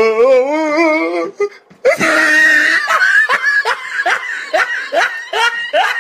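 A person laughing hard: a long wavering laugh, then after a short break a run of quick rising bursts of laughter, about three a second.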